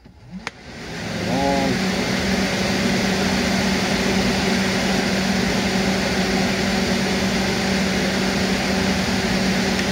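A click, then a 1990–95 Ford Taurus two-speed electric radiator fan spins up within about a second and runs steadily on its low speed, a loud rush of air over a steady hum. It is working against restricted airflow, set down on a bench top, and fades out near the end as it is switched off.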